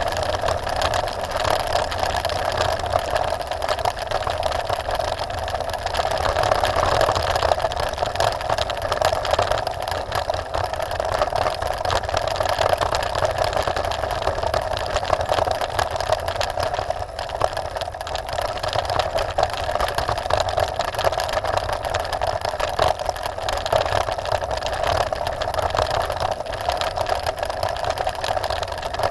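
Trek Top Fuel 9.8 full-suspension mountain bike descending a loose gravel track: tyres crunching over stones and the frame and drivetrain rattling, with wind rumbling on the microphone and a steady buzz under the noise.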